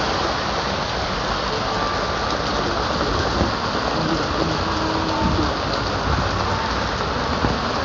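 Rain falling steadily in a thunderstorm, an even hiss of rain on surfaces.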